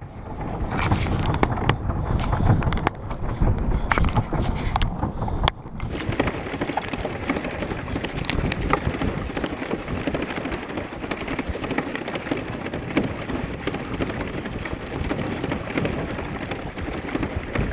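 Wind buffeting a small camera microphone over steady water splashing and churning around a moving pedal boat. Sharp clicks and knocks come in the first six seconds, then the noise settles to an even rush.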